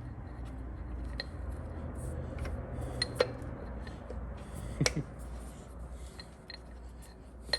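Small metal transmission parts being handled: light clicks and a few sharp taps, the clearest about three and about five seconds in, over a steady low hum.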